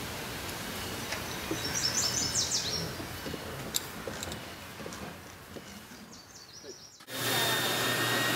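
Birds chirping over a quiet outdoor background. About seven seconds in, a cellulose insulation blowing machine starts suddenly: a loud, steady rush of air with a high whine as cellulose is blown through the hose to dense-pack the test box.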